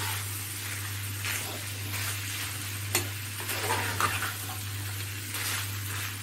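Raw boneless chicken pieces sizzling in butter as they are stir-fried, with a spatula scraping and knocking against the frying pan now and then.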